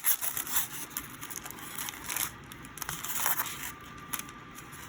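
Trading card packaging crinkling and crackling as it is handled, with irregular crackles throughout.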